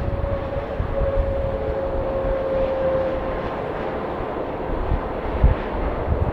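Jet airliner's engines running with a loud, steady roar, a whine holding one pitch through the first half, over an uneven low rumble.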